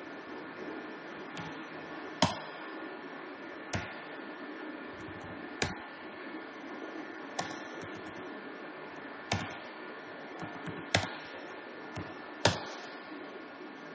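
Computer keyboard keys being pressed one at a time, a sharp click every second or two, about seven in all, over a steady hiss.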